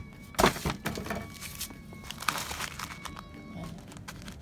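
Packaging being handled: crinkling and rustling with small clicks, and a loud knock about half a second in.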